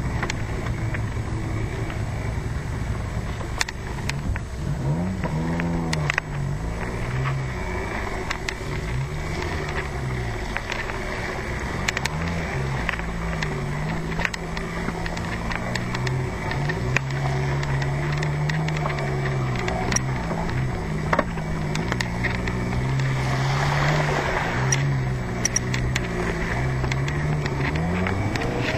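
An off-road vehicle ridden over rough ground: its motor's pitch rises and falls again and again with speed, over wind noise on the microphone and scattered knocks and rattles.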